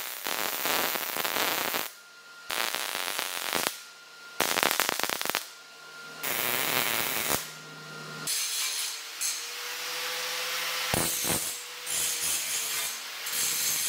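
MIG welder (Millermatic 211) tacking the corners of a 16-gauge steel sheet: four short welding bursts of about a second each. About eight seconds in, an angle grinder takes over, running steadily as it grinds along the steel edge.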